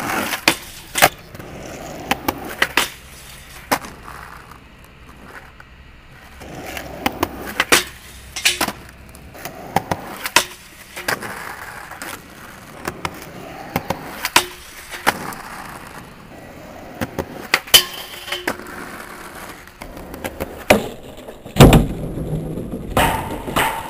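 Skateboard wheels rolling on rough asphalt, broken by many sharp clacks as the board is popped, lands and slides along a metal flat rail and a wooden box. A heavy low thud near the end is the loudest impact.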